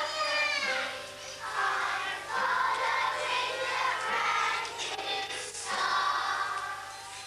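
A group of young schoolchildren singing together as a choir.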